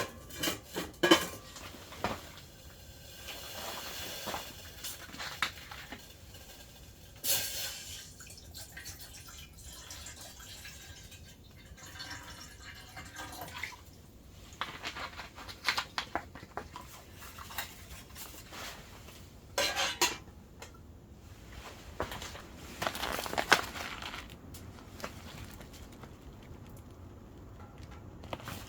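Irregular clinks, knocks and rustles of camp cookware being handled, with dripping and trickling liquid.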